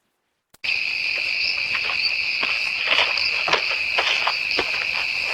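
Night insects, crickets, chirping in a steady high trill that starts abruptly about half a second in, with scattered light clicks and taps over it.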